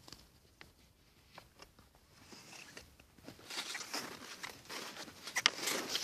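Footsteps crunching in snow: a few faint crunches at first, then louder, denser crunching from about halfway through.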